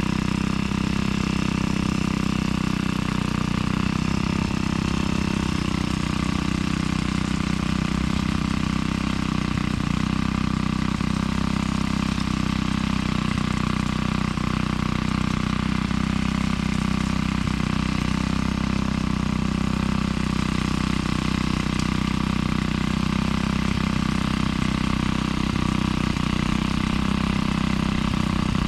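An engine running steadily at a constant speed, with no change in pitch.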